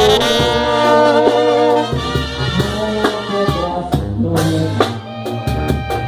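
Mexican banda music: the brass section holds chords for about two seconds, then plays shorter notes over bass and drum-kit strikes, with no vocal line.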